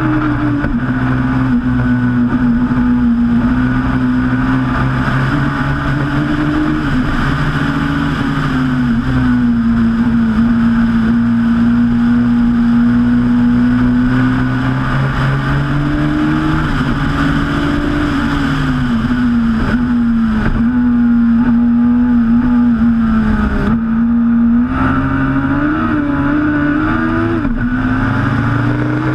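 Turbocharged Suzuki Hayabusa four-cylinder motorcycle engine of a Westfield Megabusa sports car at racing speed, heard onboard. The engine note stays high, its pitch sagging and climbing with the throttle through the corners, with a brief lift about five seconds before the end and a gear change just after.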